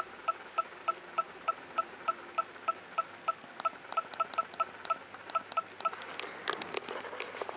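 Panasonic LUMIX DSC-TZ20 compact camera's operation beep, one short high beep about three times a second as the clock's minutes step up. The beeps stop about six seconds in, giving way to clicks and rustling of the camera being handled.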